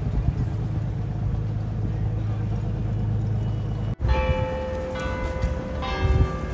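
A steady low rumble, then after a sudden break about four seconds in, the bells of St. Peter's Church in Copenhagen ringing: several strikes at different pitches, each tone ringing on and overlapping the next.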